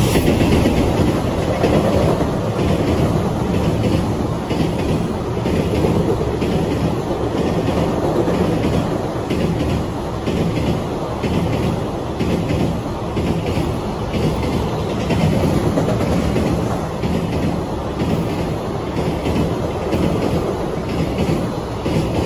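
Container freight train passing at speed over a steel girder bridge: a steady heavy rumble, with the wheels clacking over rail joints in an even rhythm.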